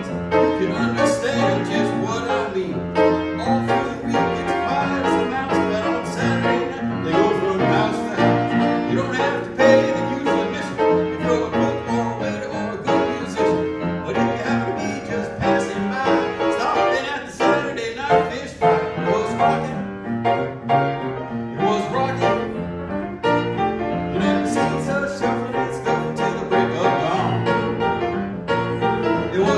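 Piano-led instrumental music playing steadily, with other instruments underneath.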